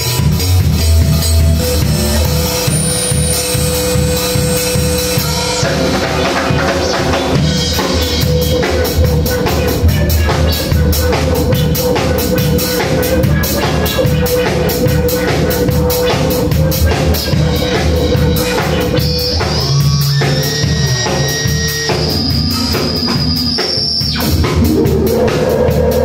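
A drum kit played with a steady beat while a Korg Monotron Duo analog synthesizer holds and shifts long electronic tones over it. A high held synth tone comes in about three-quarters of the way through and stops shortly before the end.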